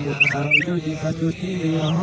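A few quick, high songbird chirps in the first half-second, then a man's voice talking.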